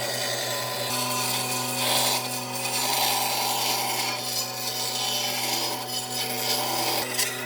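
A power tool working wood: a steady motor hum under a rasping, abrading noise that swells and fades in strokes every second or so.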